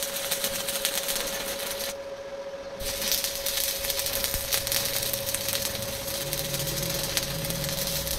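Welding arc crackling steadily over a steady hum; the crackle stops for about a second, two seconds in, then starts again.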